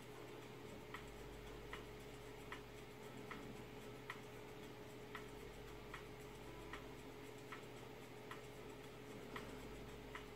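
Faint, regular ticking, about one tick every 0.8 seconds, over a steady low hum.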